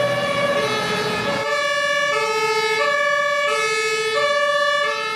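Two-tone fire engine siren alternating steadily between a lower and a higher pitch, each note lasting about two-thirds of a second. A rushing noise runs under it and stops about one and a half seconds in.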